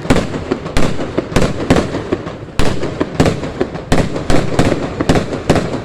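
Fireworks going off in a rapid barrage: sharp bangs two or three a second, one after another with no pause.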